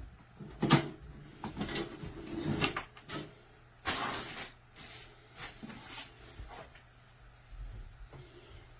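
Handling noises: a series of short knocks and clicks, with a brief rustle about four seconds in.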